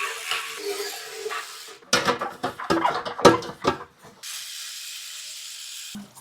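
Clatter and knocks of plastic espresso machine parts being handled and scrubbed during a deep clean, loudest from about two to four seconds in, then a steady hiss that cuts off suddenly.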